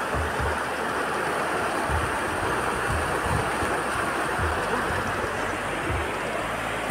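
Hill river rushing steadily over rocks, with a few short low thumps on the microphone.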